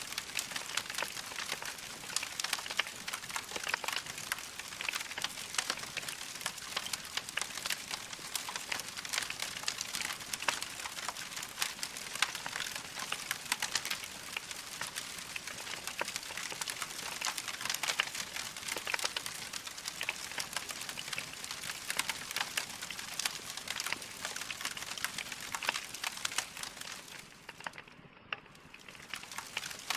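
Wood fire crackling steadily in a fireplace, a dense run of small pops and snaps that briefly falls away for about a second near the end.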